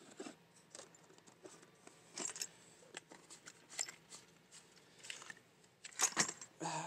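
Metal hand tools clinking and clattering against each other as they are handled in a toolbox drawer: a scatter of light taps, with one louder clunk about six seconds in.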